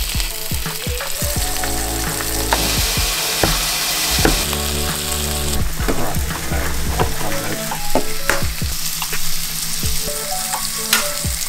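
Bacon rashers and an egg frying in a non-stick pan, sizzling steadily, with scattered light clicks and knocks of handling.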